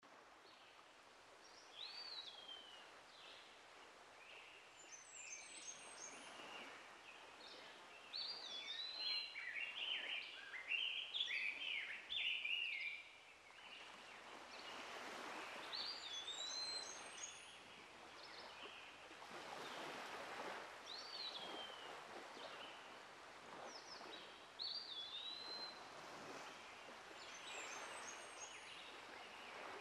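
Songbirds singing. A clear whistled phrase that dips in pitch repeats every five or six seconds, with a stretch of busier chattering song about a third of the way in. Underneath is a soft hiss that swells and fades.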